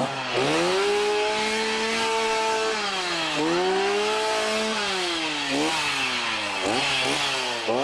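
Two-stroke chainsaw being revved with no cutting: the engine climbs and holds at high revs for about two seconds, drops back, revs and holds again, then gives short quick blips of the throttle near the end.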